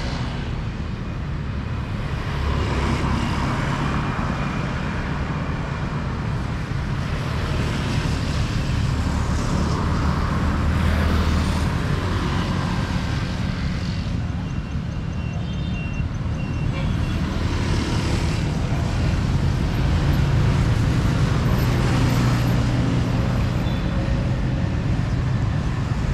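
City street traffic: a steady rumble of engines with vehicles passing by at intervals, swelling and fading.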